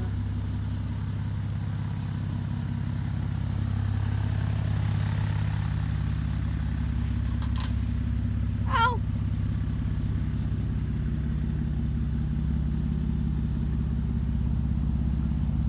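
BMW M5's engine idling steadily with the hood open. A short high wavering sound cuts in once, about nine seconds in.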